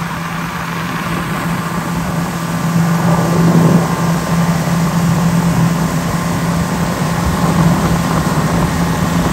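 An engine running steadily, a constant low drone with a noisy rush over it.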